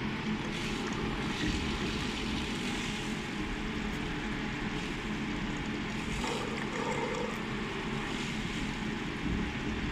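Laser welding machine's cooling fans and water system running with a steady hum, while water from a clear hose splashes steadily into a bucket of water.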